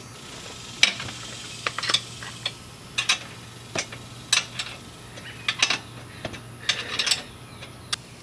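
Ratchet wrench clicking in short, irregular runs, with metal clinks, as the rear axle nuts of an adult trike are tightened to take up slack in the drive chain.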